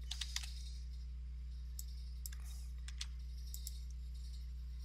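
A few sparse clicks of a computer keyboard and mouse: a quick cluster of three or four at the start, then single clicks every half second or so, over a steady low electrical hum.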